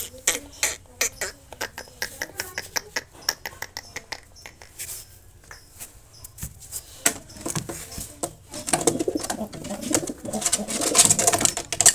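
Domestic pigeons cooing, the cooing swelling over the last few seconds, after a run of sharp clicks and knocks.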